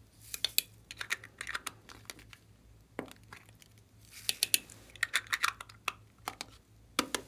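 Hard plastic candy-shaped containers clicking and clattering as they are handled and pried open, in several quick clusters of sharp clicks.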